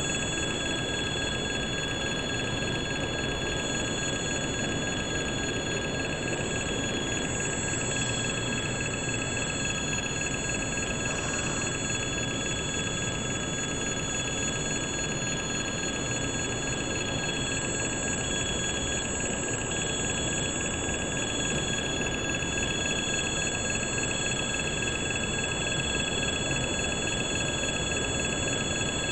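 Level-crossing warning bell ringing steadily over the continuous rumble of a passing freight train's wagons on the rails.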